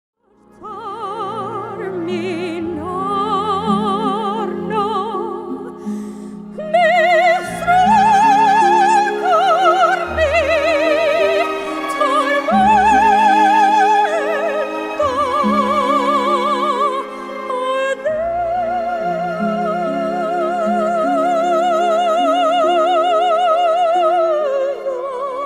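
A classically trained solo singer in a high operatic voice, singing with wide vibrato over instrumental accompaniment. The singer holds one long note from a little past the middle until near the end.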